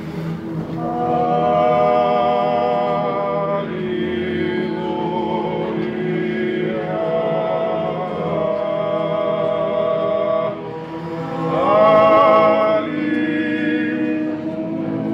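Georgian church choir of men singing a cappella in several parts, holding long chords that change every few seconds and swell loudest near the end.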